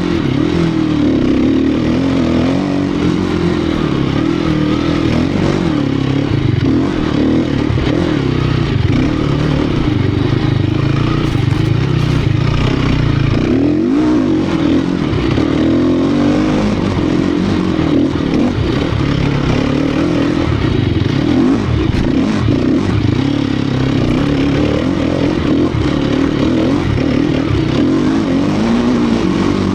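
Sherco 250 SEF Factory four-stroke single-cylinder dirt bike engine under riding load, its note rising and falling with the throttle. It drops briefly about fourteen seconds in.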